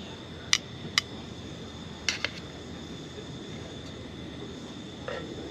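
Meat cooking on a Fire Maple portable gas burner and griddle: a steady low rush with sharp metallic clinks, two about half a second and a second in, and a quick pair a little after two seconds.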